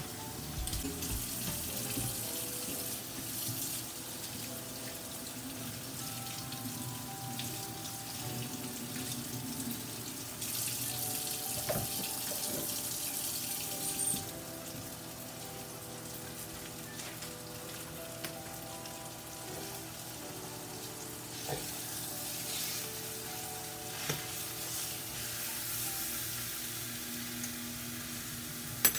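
Cornish hen frying in a skillet: a steady sizzle that swells for a few seconds about midway. Near the end a utensil clacks sharply against the pan as the hen is turned.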